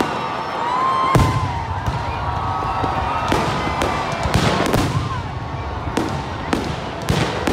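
Aerial fireworks bursting overhead: a series of sharp bangs about once a second, some coming close together, over a steady crackle and hiss.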